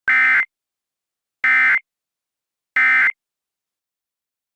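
Emergency Alert System end-of-message code: three identical short bursts of digital data tones, each about a third of a second long and a bit more than a second apart. They signal that the alert message has ended.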